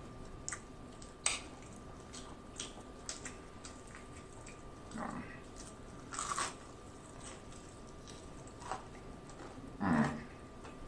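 Close-miked biting and chewing of crispy Popeyes fried chicken, the crust crackling in short scattered crunches, with a louder crunch about six seconds in.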